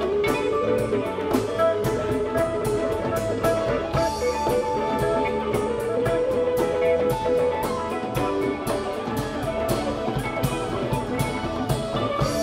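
Live rock band playing an instrumental jam: electric guitar lines over bass, drum kit and hand-played congas, in a steady groove.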